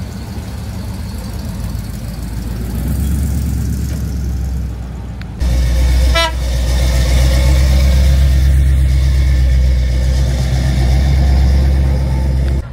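Car engine running close by with a steady low exhaust note, stepping up louder about five seconds in, and a short horn toot about six seconds in.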